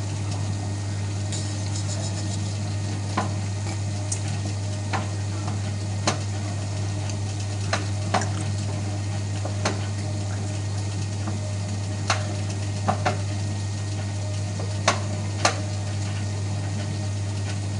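Hotpoint Aquarius WMF520P washing machine spinning fast, with a steady loud low hum and hiss and sharp, irregular clicks and knocks about once a second. The machine is noisy from a faulty drum spider, with the bearings also in question.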